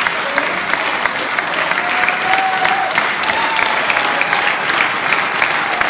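Audience applauding at the end of a song: dense, steady clapping from a large crowd.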